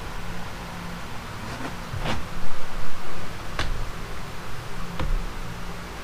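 Hand tools knocking and clicking against a Hobart mixer's shaft assembly clamped in a vise: four short sharp knocks, the loudest about two seconds in, over a steady low hum.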